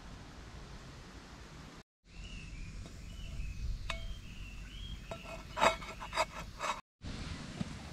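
Aluminium camp cooker being lifted off a campfire on its folding wire handle: a light metal clink about halfway through, then a quick cluster of clinks and clatters from the lid and handle a second or two later.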